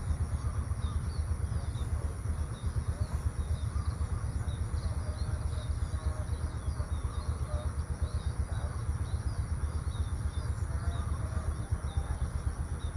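Outdoor rural ambience: many small birds chirping in quick, scattered calls over a steady low rumble, with a thin, steady high-pitched hiss above.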